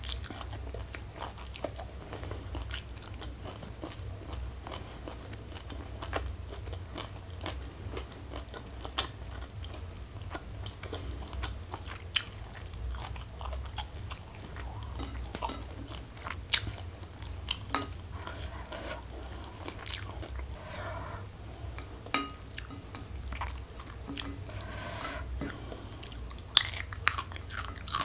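Close-miked eating: biting and chewing raw green vegetables with crisp crunches, the mouth sounds coming as irregular clicks, with a few louder crunches in the second half.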